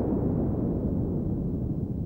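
Sea waves: the low wash of a spent wave, fading away.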